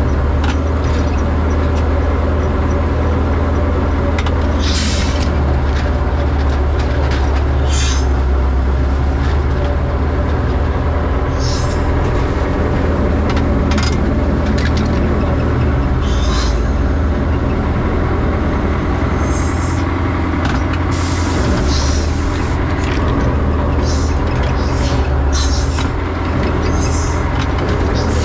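Dragline excavator's engine running steadily under load, heard from inside its cab as the boom and bucket swing, with short bursts of hiss every few seconds and a longer one about two-thirds of the way through.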